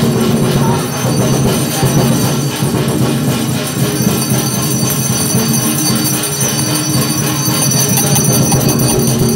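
Loud, continuous ritual music for a tatung spirit-medium procession, with bells jingling steadily over it.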